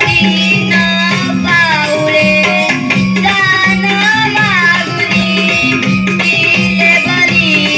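Live devotional folk-theatre music: a child's high voice sings a Krishna Leela song with gliding, ornamented notes over a steady, repeating drum beat and melodic accompaniment.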